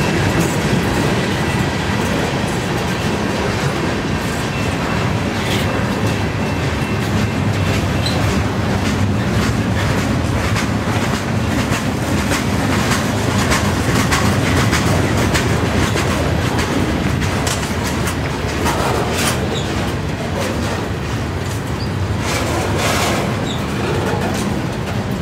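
Freight cars (covered hoppers, boxcars and tank cars) of a long freight train rolling past: a steady rumble of steel wheels on rail, with repeated irregular clicks and clanks as the wheels cross rail joints.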